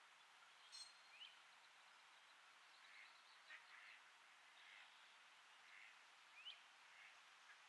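A few faint, short bird calls over a steady outdoor hiss, two of them quick rising chirps: one about a second in, one near the end.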